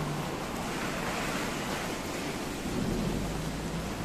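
Steady hiss of a thunderstorm, rain and wind, with a low rumble that swells about three seconds in.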